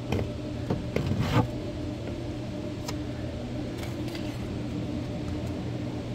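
Plastic interior trim being handled in a BMW 528i's passenger footwell: a few sharp clicks and knocks in the first second and a half, and a couple of lighter ones later. A steady low hum runs underneath.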